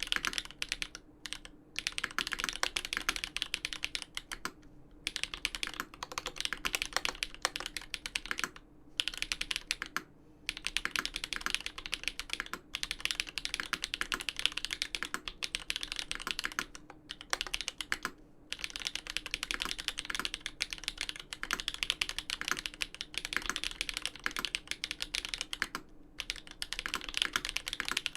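Continuous fast typing on a custom mechanical keyboard: Everglide Dark Jade Black linear switches with 63.5 g slow springs on an aluminium plate in a Dolphin v2 case, with GMK keycaps. It is a rapid stream of clicky keystrokes, broken by a few short pauses.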